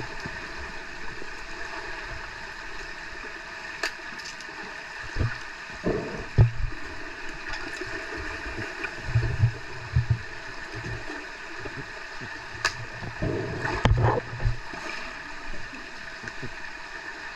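Underwater pool sound heard by a submerged camera: a steady muffled hiss with irregular low thumps and churning from swimmers' fin kicks and bubbles, and a few sharp clicks, once about four seconds in and twice near the end.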